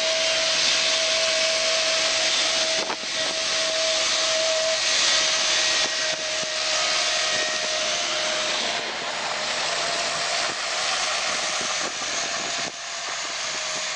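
Amphibious all-terrain vehicles running across snow: a loud, steady hissing engine noise with a steady whine that fades out a little past halfway.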